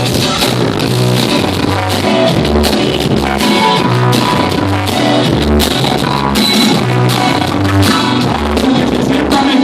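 Loud recorded dance music played over a sonidero sound system, with a bass line stepping between notes in a regular rhythm.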